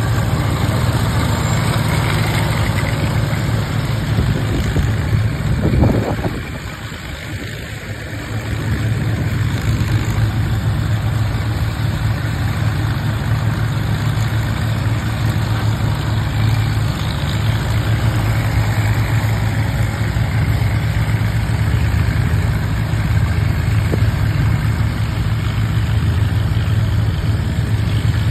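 Allis-Chalmers WD45 tractor engine running steadily while pulling a #7 sickle-bar mower through hay. The sound flares briefly about six seconds in, then drops for about two seconds before settling back to its steady level.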